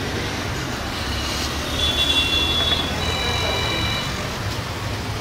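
Steady low rumble of a distant Airbus A320's jet engines on the runway, mixed with outdoor traffic noise. A high tone made of several pitches sounds for about two seconds in the middle, stepping to a different pitch halfway through.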